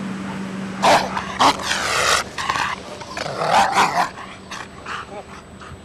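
Rottweiler guard dog barking and growling in several loud outbursts, the biggest between about one and four seconds in, then quieter.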